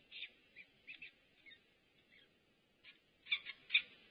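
Downy peregrine falcon chicks giving a string of short, high-pitched chirps, louder and closer together in the last second.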